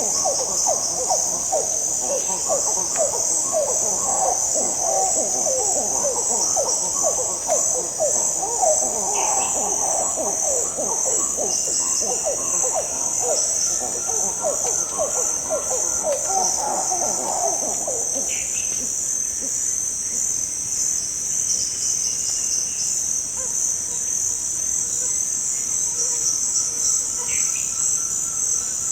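Rainforest ambience: a steady high-pitched insect chorus, with a dense run of rapid monkey calls lower down that stops about two-thirds of the way through. A few short bird chirps come and go.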